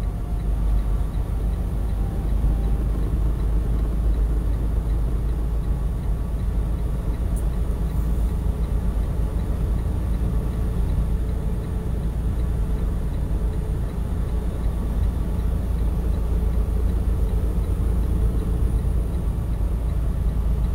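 Steady low drone of a semi-truck's engine and tyres, heard from inside the cab while cruising on the highway.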